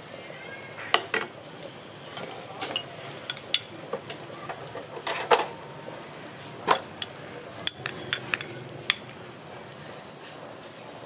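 A metal spoon and chopsticks clink and tap against a soup bowl as food is picked out of it: a string of irregular sharp clinks, some ringing briefly, that stop about two seconds before the end.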